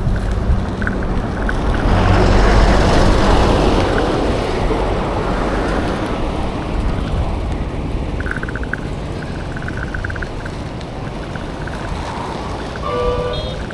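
Road traffic noise heard from a moving bicycle, with low rumble and wind on the microphone. A vehicle passes, loudest about two to three seconds in, then the noise eases. A short horn honk sounds near the end.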